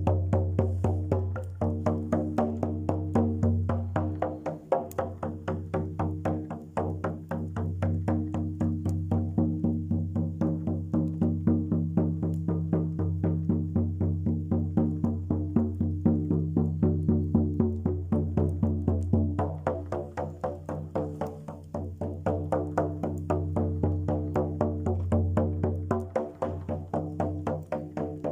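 Music: a steady low drone with overtones, driven by quick, regular plucked or struck pulses at about five a second.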